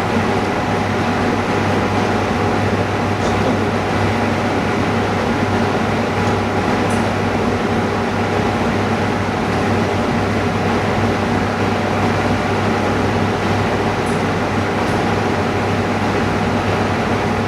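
Steady mechanical hum of running machinery, unchanging in level, with a few faint light ticks from small parts being handled.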